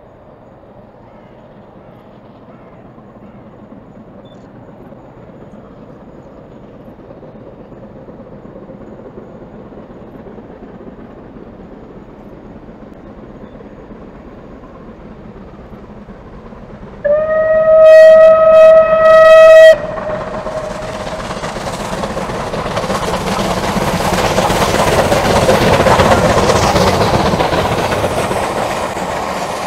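A steam train climbing the bank, at first faint and slowly growing louder. About 17 seconds in, a steam whistle sounds loud for nearly three seconds. Then the locomotive and its coaches pass, the rush of exhaust and wheels rising to a peak and easing off as the train goes by. The locomotive is Bulleid light Pacific 34046 'Braunton'.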